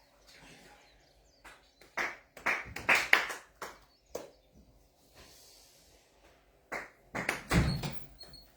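Sharp hand claps in two clusters: about five roughly two to four seconds in, then a few more near the end, the last of them with a dull low thump. They are prayer claps in Konkokyo worship.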